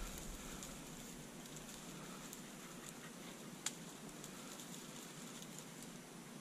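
Faint rustling and crackling of dry brush, with one sharp click about three and a half seconds in.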